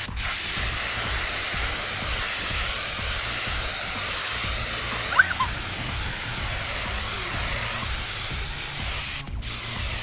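Air spray gun hissing steadily as it sprays paint, fed from a homemade compressor built on a refrigerator compressor, with a low steady hum underneath. The spray cuts out for a moment near the end and starts again, and a short chirp sounds about halfway through.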